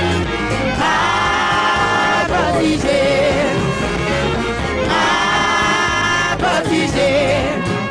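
Live gospel music from a brass band with singing: two long held chords, with a wavering vocal line between them.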